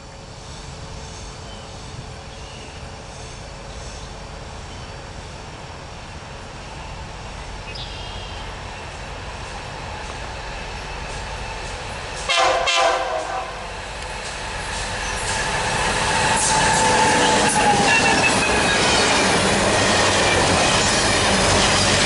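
Loram rail grinder train approaching at about 60 mph, its rumble growing steadily louder. About halfway through, the lead locomotive gives a short blast on its three-chime horn. In the last few seconds the wheels squeal and clatter on the rails as the train closes in.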